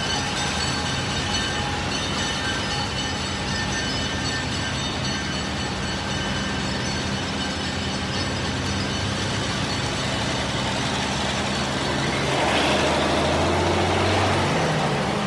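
Mining freight train running steadily, with a low engine hum throughout. Thin high-pitched tones fade out over the first few seconds, and about twelve seconds in a louder rushing noise rises for a couple of seconds, then eases off.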